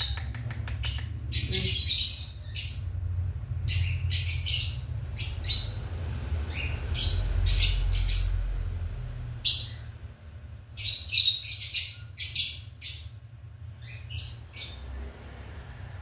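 Cockatiel calling with many short, high chirps in quick clusters and pauses as it is spoon-fed cereal, over a steady low hum.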